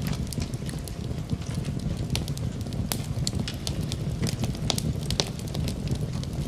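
Wood fire in a fireplace crackling, with many sharp irregular pops and snaps over a steady low rumble.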